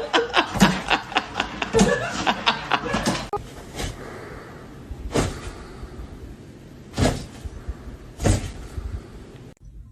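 A quick run of clattering knocks mixed with a person laughing for about three seconds, then four single knocks spread out a second or so apart.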